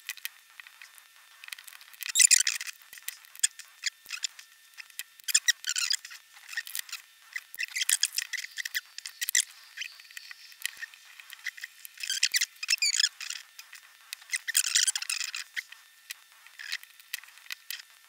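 Small plastic clicks, scrapes and snaps as a mobile phone's case is pried apart and unscrewed with a pry tool and small screwdrivers. The sounds come in short clusters every few seconds.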